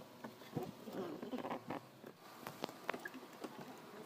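Scattered light clicks and taps of a screwdriver and plastic door trim on a Toyota Vios door, over a faint rustle.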